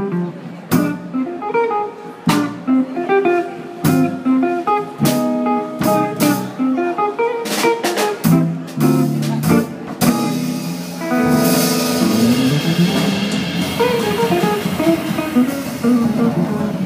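Jazz trio of archtop guitar, upright double bass and drum kit playing together. The first ten seconds are short, sharp accents struck by the whole band, then from about eleven seconds in a held chord rings over a long cymbal wash, typical of a tune's final ending.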